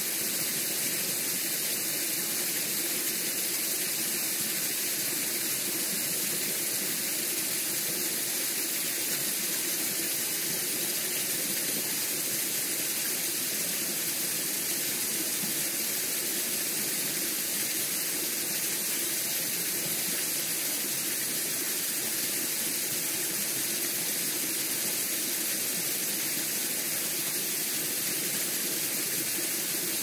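Shallow stream flowing over pebbles and stones: a steady, even rush of running water.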